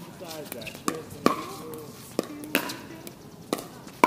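A pickleball rally: about six sharp pops of paddles striking the hard plastic ball, roughly half a second to a second apart.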